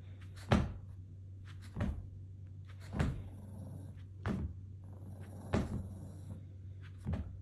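A series of about six dull knocks, roughly one every second and a quarter, over a steady low hum.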